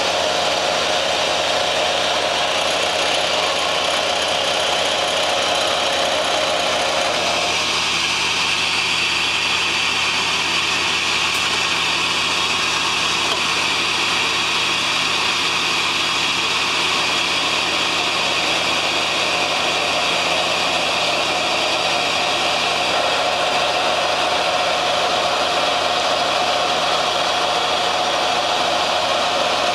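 Mazak SQT 250MY CNC turning center running: a steady mechanical hum and hiss with several steady tones. A mid-pitched tone drops away about seven seconds in and comes back later.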